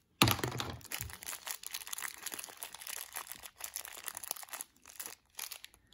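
Thin clear plastic bag crinkling as hands work it open around the metal miniatures inside; the crackle dies away about five seconds in.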